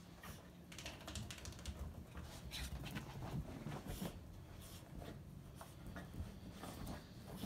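Small dog moving about on a blanket-covered armchair: faint, irregular rustling of fabric with quick soft ticks and patters, thickest in the first few seconds.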